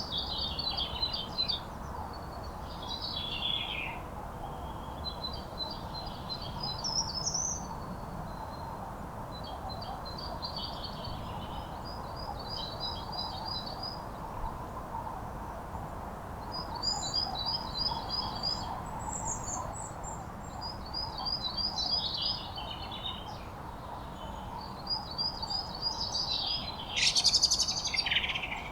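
Songbirds singing in repeated short phrases of quick, high, chattering notes, some ending in a falling sweep, with the loudest phrase near the end. A steady low background rumble runs underneath.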